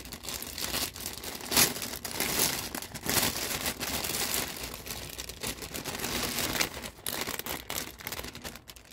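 Clear plastic packaging bag crinkling and crackling in a dense run of sharp rustles as a plush doll is worked out of it. The loudest crackle comes about one and a half seconds in.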